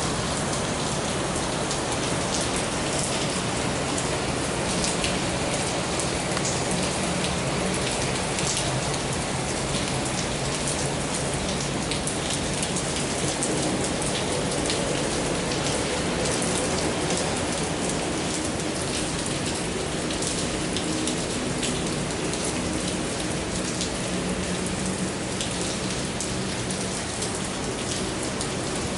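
Steady heavy rain, with many separate drop hits. Underneath, a faint low engine hum from a taxiing Flybe Bombardier Dash 8 Q400 turboprop comes in around the middle.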